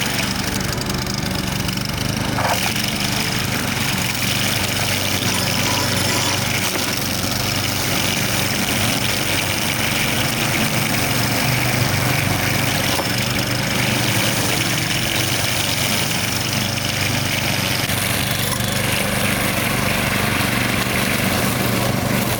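Buffalo T55 high-wheel string trimmer's 200cc engine running steadily at working speed, its spinning nylon line cutting through grass.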